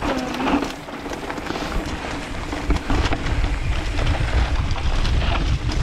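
Wind rumbling on an action camera's microphone as a mountain bike rolls fast down a dirt singletrack, with tyre noise and occasional knocks and rattles from the bike over the trail. The rumble grows louder over the first couple of seconds as speed builds.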